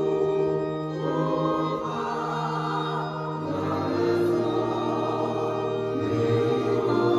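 Church choir singing a hymn over held organ chords; the bass note shifts about three and a half seconds in and again near six seconds.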